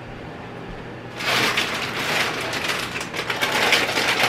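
A plastic bag of tortilla chips being handled and opened, a loud crinkling full of sharp crackles starting about a second in.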